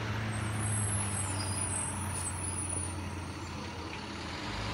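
School bus passing close by: its engine runs with a steady low hum over road noise, easing off a little near the end.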